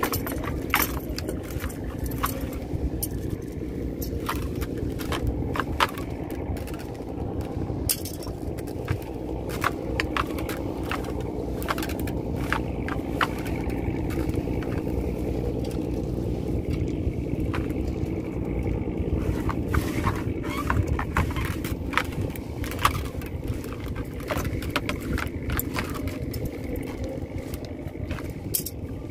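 A small fishing boat's engine running steadily, with frequent sharp clicks, knocks and scrapes from handling on board.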